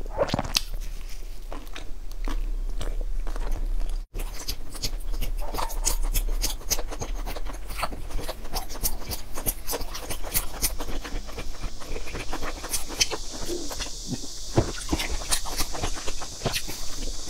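Close-miked eating: biting into and chewing soft cakes, with many small mouth clicks. There is a brief gap about four seconds in, and a steady high hiss joins about two-thirds of the way through.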